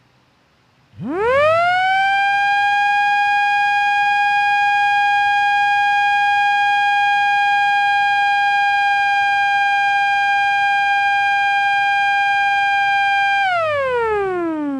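A siren set off by a ceremonial push-button. About a second in it rises quickly in pitch to one steady high tone with several overtones. It holds for about twelve seconds, then falls in pitch near the end as it winds down.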